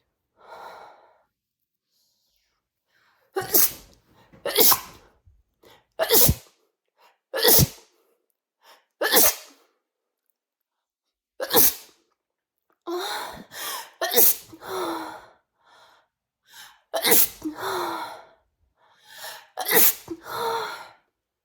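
A woman sneezing repeatedly: a faint breath, then about ten sharp sneezes. The first six come singly, a second or two apart; the later ones run together in clusters with voiced gasps between them.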